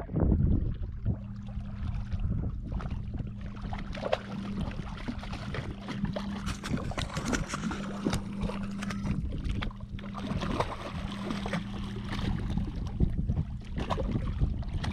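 Water splashing and slapping at a boat's side as a hooked shark thrashes alongside, in short irregular bursts over a steady low hum.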